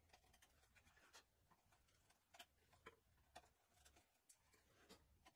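Faint, scattered ticks and scratches of a half-inch chisel pushed by hand into wood, paring chips out of a shallow mortise.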